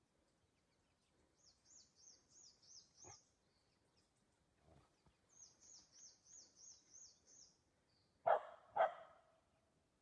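A bird calls in two runs of quick, repeated high notes, about three or four a second. Near the end a dog barks twice, about half a second apart, louder than the bird.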